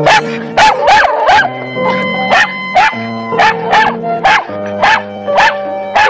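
A dog barking over and over in short, sharp barks, about two a second, over background piano music.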